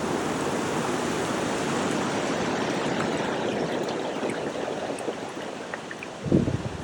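Rushing water as a steady, dense noise that eases off after a few seconds, with a brief low thump near the end.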